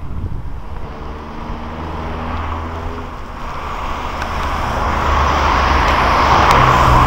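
Road traffic: a car engine hum for the first few seconds, then tyre and road noise from a passing car growing steadily louder toward the end.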